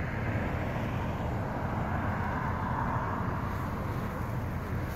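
Steady road traffic noise, with a low rumble and a slight swell near the middle.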